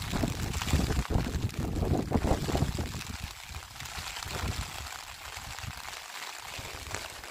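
Steady rain hiss with gusts of wind buffeting the microphone, the wind rumble strongest in the first three seconds before settling.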